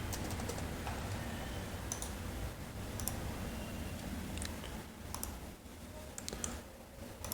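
About half a dozen sparse clicks of a computer keyboard and mouse, spaced out, over a steady low hum.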